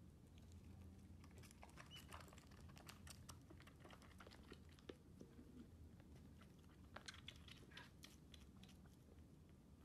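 Faint, irregular clicks and smacks of a baby bobcat kitten suckling at a nursing bottle, over a low steady hum.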